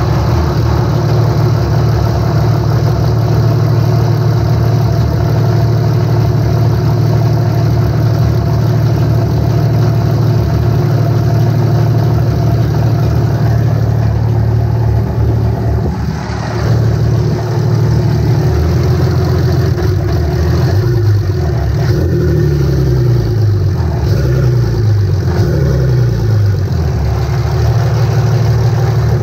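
A 24-valve 5.9 Cummins diesel runs with its valve cover off on its first fire with new FLUX injectors: a steady idle, then, from about 20 seconds in, it is revved up and down several times.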